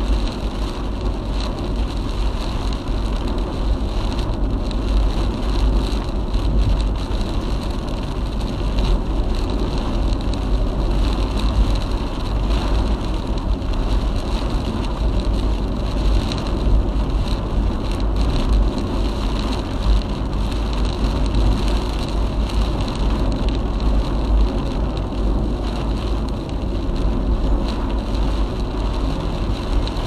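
A car driving through typhoon rain and strong wind: steady road and wind noise with rain on the car, and a deep rumble throughout.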